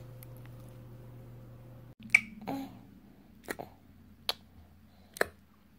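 A baby's mouth clicks and smacks: a few sharp, short clicks about a second apart, the first pair with a faint squeak of voice. Before them there is a steady low hum.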